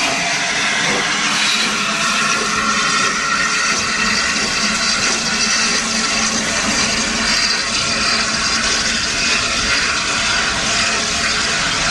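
Steady, loud hiss of steam from the Peppercorn A1 Pacific steam locomotive 60163 Tornado as it moves slowly past, its tender and coaches rolling by.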